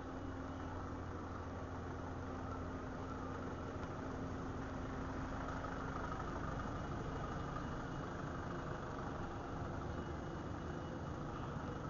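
An engine running steadily with a low hum; a steady tone in it fades out about halfway through.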